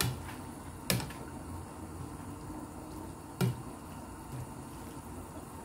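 Spinach stirred in a pan of boiling water: a low, steady bubbling, with a few sharp clicks of the spoon against the pan, the loudest about a second in and again past three seconds.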